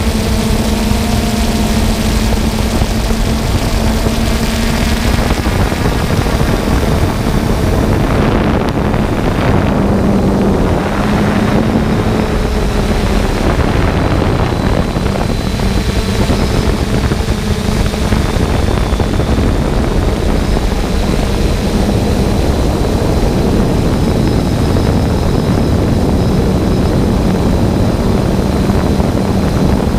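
Multirotor drone's propellers and motors humming steadily in flight, the hum drifting slightly in pitch, over a constant rush of air.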